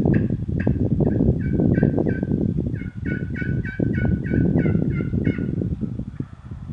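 Turkey yelping: a long run of short, evenly spaced yelps, about three a second at first and quicker in the second half, stopping near the end. A loud low rumble with knocks lies under it.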